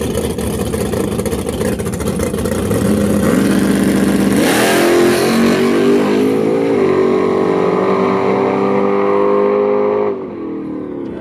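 Nitrous small-block V8 of a Chevrolet Monte Carlo drag car: a rough, choppy idle at first, revving up about 3 s in, then launching at full throttle about 4.5 s in. The engine pitch climbs, steps once near 7 s as it shifts, and holds steady. It drops away sharply about 10 s in as the car runs off down the strip.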